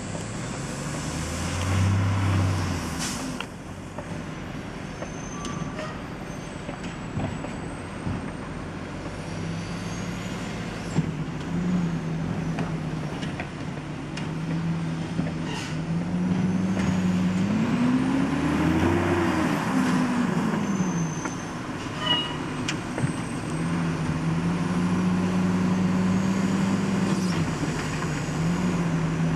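Diesel engine of a front-loader garbage truck with a Curotto-Can arm running and revving to drive the hydraulics as the arm grabs, lifts and dumps a wheeled trash cart. The engine pitch rises and falls back once around the middle, with a few sharp clanks.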